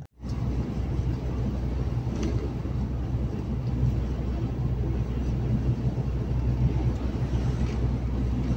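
Truck driving at motorway speed, heard from inside the cab: a steady low rumble of engine and road noise.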